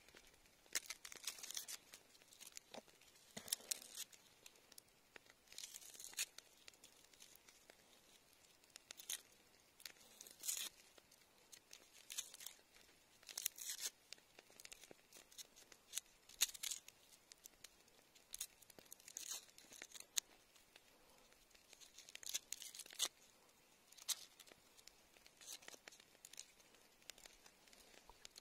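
Knife slicing a small raw onion held in the hand, with short, crisp cuts at irregular intervals of a second or two.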